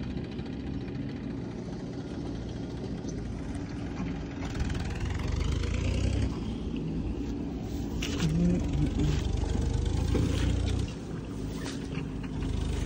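Vehicle engine running steadily at low revs. From about four seconds in, a louder low rumble of wind on the microphone comes in, with a few soft knocks in the second half.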